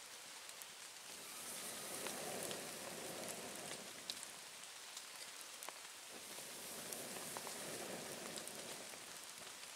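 A person blowing long breaths into a smouldering campfire of damp twigs to coax it back into flame, heard as two drawn-out whooshes, with scattered small crackles and ticks.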